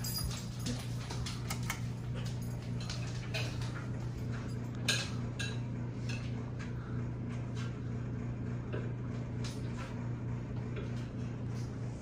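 Casablanca Lady Delta ceiling fan running, its motor giving a steady low hum, with many small irregular clicks and ticks throughout.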